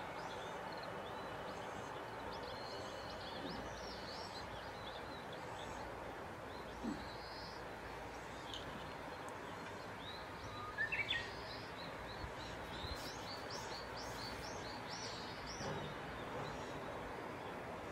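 Outdoor ambience: a steady background hiss with many small birds chirping throughout, and a louder quick run of chirps about eleven seconds in.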